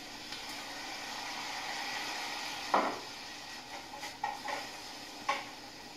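Sliced onions sizzling in hot olive oil in a saucepan, a steady hiss, with a sharp knock about three seconds in and a few light taps after it.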